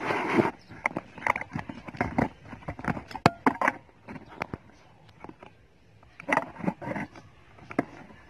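Handling noise: irregular clicks, taps and short scrapes as a phone is moved and things on a wooden table are handled, thinning out in the middle and picking up again after about six seconds.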